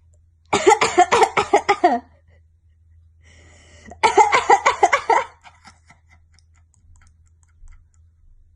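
A woman's coughing fit: two bouts of rapid, repeated coughs, the first starting about half a second in and the second about four seconds in, each lasting over a second.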